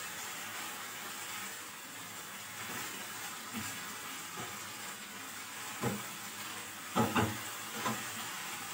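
Chicken and vegetables frying in oil in a nonstick pan, a steady sizzling hiss. A few short knocks near the end stand out above it.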